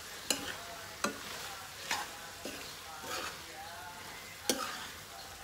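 Metal spoon stirring a thick vegetable curry in a steel wok, knocking against the pan about five times over a soft sizzle.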